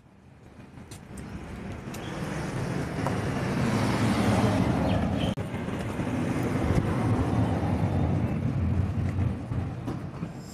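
Steady car and road rumble, fading in over the first few seconds and then holding steady.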